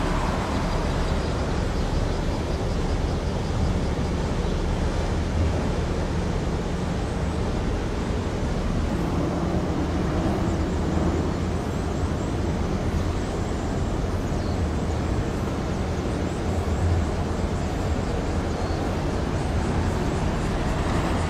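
Steady low engine drone over a constant outdoor background hiss.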